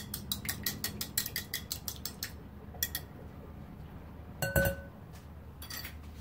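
Fork beating an egg in a small glass bowl, clicking against the glass about five times a second, stopping a little over two seconds in. A single ringing glass clink follows about four and a half seconds in, with a few lighter knocks.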